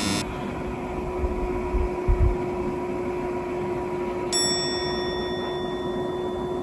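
A single bell-like ding about four seconds in, ringing on and fading over a couple of seconds, an edited sound effect marking the sleeper going "down". Under it a steady hum, with a couple of dull low thumps around two seconds in.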